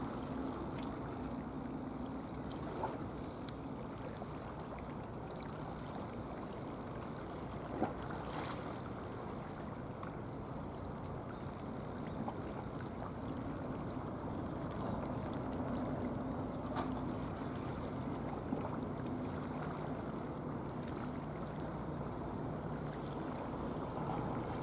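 Seawater washing and lapping against breakwater blocks, a steady wash of noise with a faint low hum beneath it and a few faint ticks.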